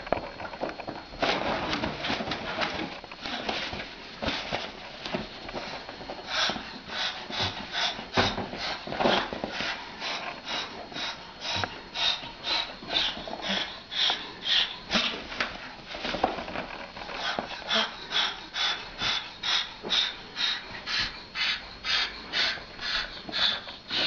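Cockatoo giving a long run of short, rhythmic calls, about two to three a second, becoming steady and even from about six seconds in.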